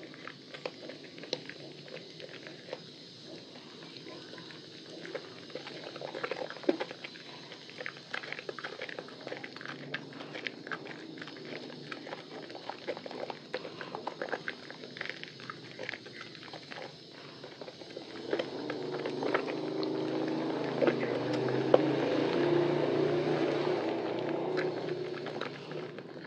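Hands squeezing and kneading soaked, mushy Lervia milk soap in a basin of thick lather: wet squishing with many small crackles and pops of foam. A louder low hum swells in the background about two-thirds of the way through and fades near the end.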